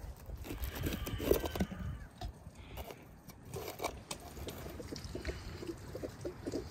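Kitchen knife cutting into crisp bell peppers on a wooden cutting board: crunchy slicing with a run of small knocks of the blade against the board.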